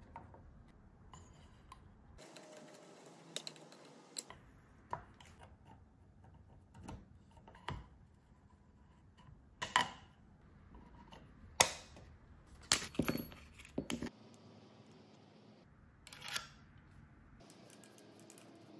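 Scattered sharp clicks and taps of metal and polymer parts being handled and fitted on an AR-style rifle lower receiver, with the loudest clicks clustered about ten to fourteen seconds in.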